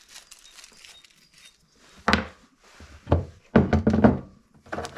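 Steel chain and hooks being handled on a workbench: a few separate clunks about two and three seconds in, then a denser clatter of knocks for about half a second, and another near the end.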